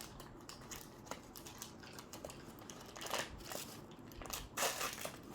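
Crinkling and rustling of plastic packaging with small clicks as toy pieces are handled. There are louder crinkles about three seconds in and again near the end.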